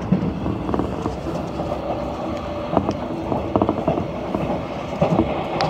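Running sound inside a JR 185 series electric train's Green car at speed: a steady rumble with wheels clicking irregularly over rail joints.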